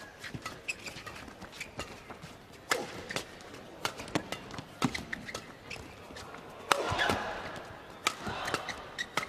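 Badminton rally: feathered shuttlecock struck hard by rackets in a quick, irregular series of sharp hits, with players' court shoes squeaking on the mat. Crowd noise swells briefly near the end.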